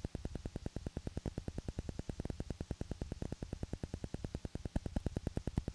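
Rapid, evenly spaced clicking over a low electrical hum: static from a blank, black stretch of old videotape.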